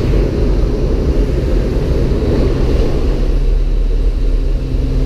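Loud, steady drone of a skydiving jump plane's engines and propellers heard from inside the cabin, with wind rushing in through the open door.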